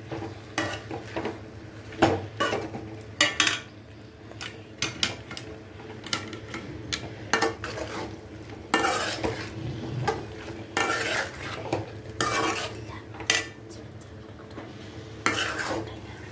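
Metal spoon scraping and clanking against an aluminium kadai as chicken pieces in thick sauce are stirred, in uneven strokes, over a faint sizzle from the pan on the heat.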